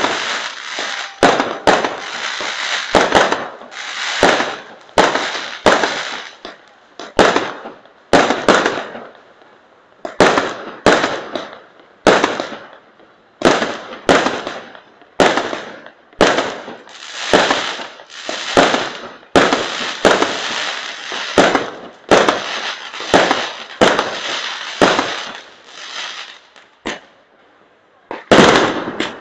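Fireworks display going off at close range: aerial shots launch and burst in a steady run of sharp bangs about a second apart, each trailed by a short hiss. There is a brief lull near the end.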